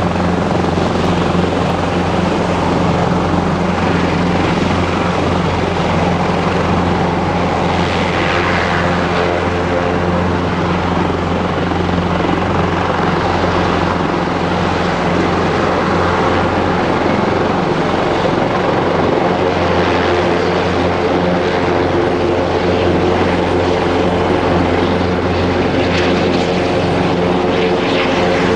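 Airbus Helicopters EC225LP Super Puma's twin turbine engines and main rotor running steadily and loudly close by, with no change in pitch or level.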